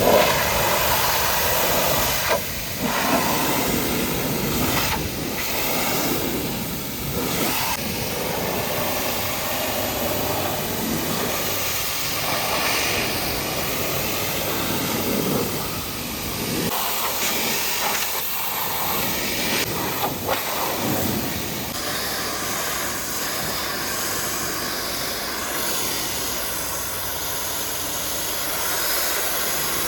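High-pressure washer jet spraying water onto a truck: a loud, steady hiss that changes tone a few times as the jet moves.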